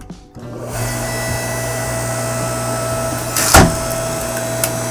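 Electric 6-ton log splitter's motor starting up about half a second in and running with a steady hum as its ram pushes through a piece of maple. About three and a half seconds in there is one loud, sharp crack as the maple splits.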